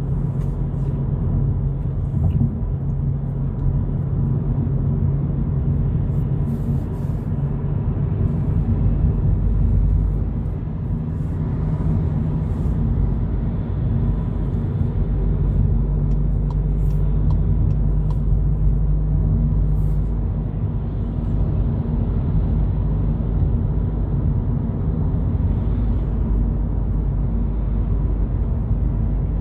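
A 2022 Volkswagen Polo GTI on the move: a steady, low rumble of road and engine noise, with the engine note shifting a few times as speed changes.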